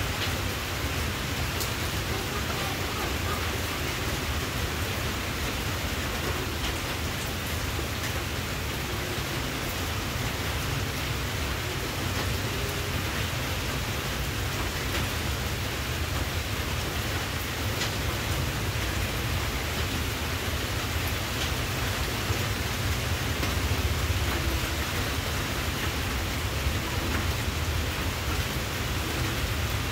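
Steady, even hiss with a low rumble underneath and a few faint ticks, unchanging throughout.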